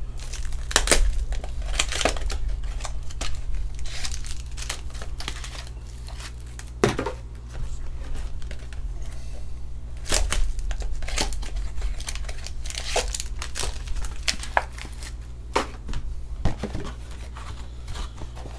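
Foil and plastic trading-card packaging being handled and torn open, with irregular crinkling and sharp crackles over a steady low hum.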